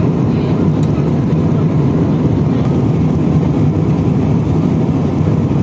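Steady low rumble of a jet airliner's cabin in flight: engine and rushing-air noise heard from a window seat, even and unbroken.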